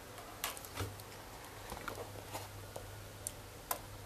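Light, irregular clicks and taps, roughly one to two a second, from a stainless-steel diver's watch and bracelet being handled in the fingers.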